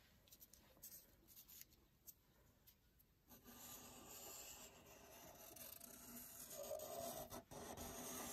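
Black felt-tip marker scratching along paper as it traces around a cut-out bird template, starting about three seconds in and growing louder toward the end. A few faint taps of handling come before it.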